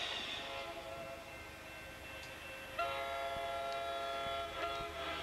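A multi-tone train horn sounds loudly for about two seconds, breaks off briefly and sounds again near the end, over the quieter running noise of a train.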